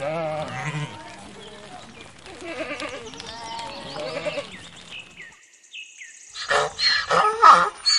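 A flock of sheep bleating, several wavering bleats overlapping through the first five seconds. After a short pause, a louder, harsher burst of sound begins about six and a half seconds in.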